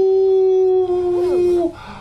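American Cocker Spaniel puppy howling: one long howl held at a steady pitch that stops shortly before the end, with a brief wavering just before it stops.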